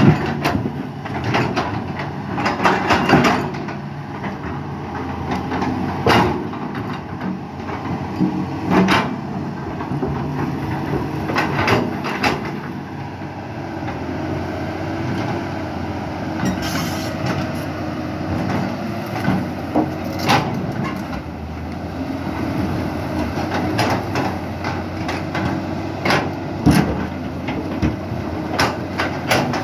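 CAT 320C excavator with a Mercedes-Benz 366 inline-six diesel running steadily under digging load. Repeated sharp clanks and knocks of the steel bucket striking and scraping rock come at irregular intervals throughout.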